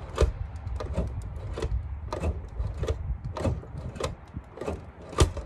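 Fiat Panda 4x4 handbrake being worked, heard from under the car: a run of sharp, irregular clicks and knocks, about three a second, from the lever ratchet and the cable linkage.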